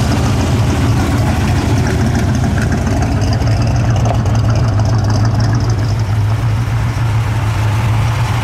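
Hot rod engines running at a slow roll and near idle, with a steady low note: a 1932 Ford coupe street rod passes, and a Plymouth Duster comes up behind it.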